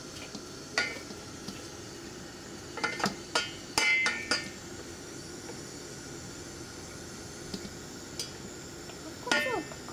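Wooden spatula stirring sliced green onions in a stainless steel pot, with scattered knocks and clinks against the pot, bunched together about three to four seconds in.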